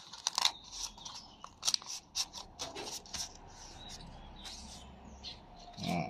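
Fresh banana leaf crackling and rustling as it is folded and pinned shut with a thin wooden skewer: a scattered run of sharp crisp clicks.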